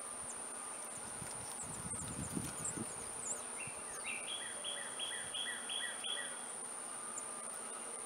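Outdoor ambience with a steady high-pitched insect drone. From about four seconds in, a bird sings a run of about six quick, repeated down-slurred whistles lasting a couple of seconds.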